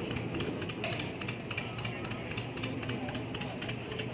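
John Deere two-cylinder tractor engine running, heard as a rapid, uneven clatter of ticks over a steady low hum.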